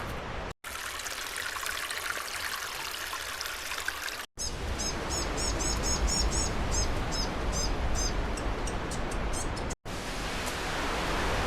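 Outdoor ambience: a steady rushing hiss with a low rumble, dropping out for a split second three times where clips are joined. In the middle stretch a bird chirps rapidly in a long series of short high notes.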